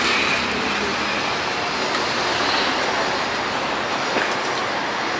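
Steady road traffic noise, an even wash without a clear engine note, with a brief tick about four seconds in.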